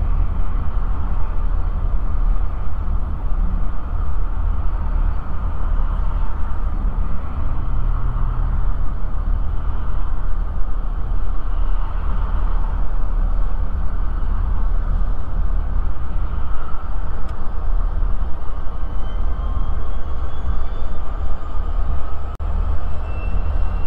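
Steady low rumble of a car driving alongside a moving freight train: the car's road noise and wind, with the freight train's diesel locomotives mixed in. A faint rising whine comes in over the last few seconds.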